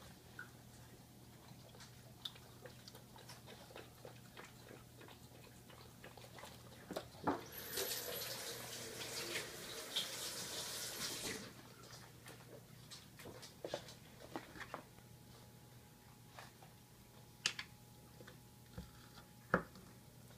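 A kitchen tap runs for about four seconds, near the middle, with water splashing into the sink. Before and after it come scattered light clicks and knocks of a spoon, bowls and a jar on the counter.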